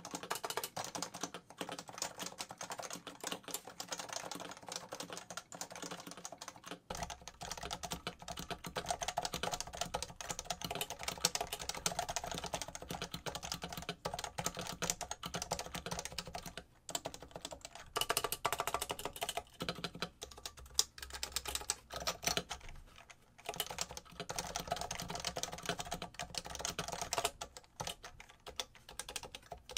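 Typing on a Leopold FC660C's Topre switches housed in a Norbauer Heavy-6 case: a fast, uneven stream of keystrokes with a couple of brief pauses.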